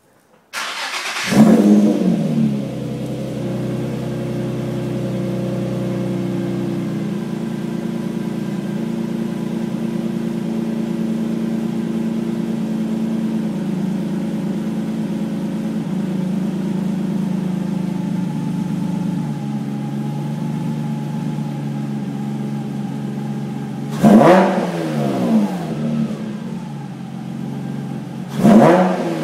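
Nissan 350Z's VQ35HR 3.5-litre V6, breathing through Stillen headers, Motordyne ART pipes and a Motordyne TDX V2 exhaust, starting up with a brief flare of revs. It settles into a steady idle that steps down to a lower idle about six seconds in. Two short, sharp throttle blips come near the end.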